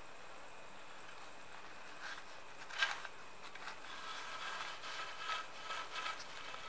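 Faint rustling and scraping of a cotton rope being drawn through a hole in a wooden aari frame bar, with a brief louder swish about three seconds in.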